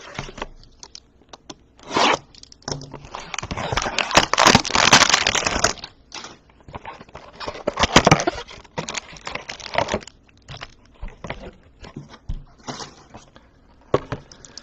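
Cardboard trading-card hanger box being torn open and handled, with cello-wrapped card stacks pulled out. A long stretch of tearing and scraping comes about four seconds in, then further bursts of cardboard and plastic-wrap rustling.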